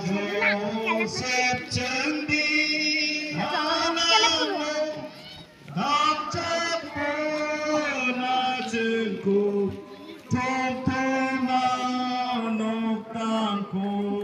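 Singing: a song sung in long held notes, phrase after phrase, with short breaks between phrases.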